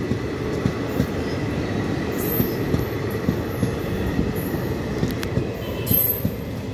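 Coaches of a passenger express train running through a station at speed: a steady rumble of wheels on the rails, with quick, irregular clatter as the wheels cross the rail joints.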